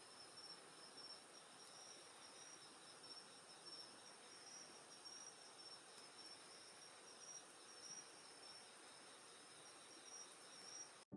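Faint chorus of night insects trilling steadily in two high pitches, one of them pulsing, over the soft hiss and scattered faint pops of a crackling wood campfire. The sound cuts off abruptly at the very end.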